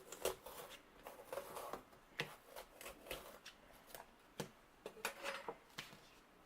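Knife cutting into a bell pepper on a cutting board: a string of irregular crisp cuts and light knocks, with some rustling as the pepper is handled.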